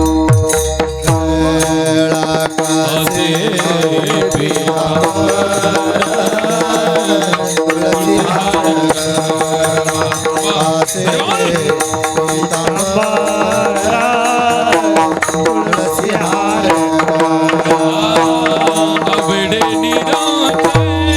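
Marathi kirtan devotional music: a voice sings a slow, gliding melody over steady held drone notes. Low hand-drum strokes stop about two seconds in and come back at the very end.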